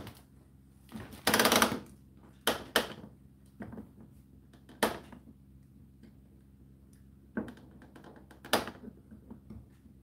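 Irregular clicks and clunks from the programme timer dial of an Indesit condenser tumble dryer being turned by hand, with a short rattling burst about a second and a half in and small ticks near the end, over a faint steady hum.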